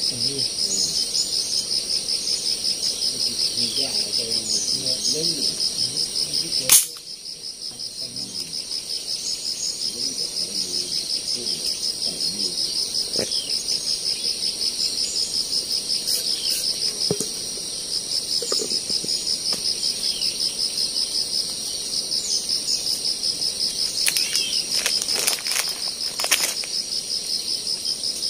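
Insects trilling in a steady, high-pitched, finely pulsing chorus, with faint bird chirps. One sharp snap about seven seconds in, and a few clicks near the end.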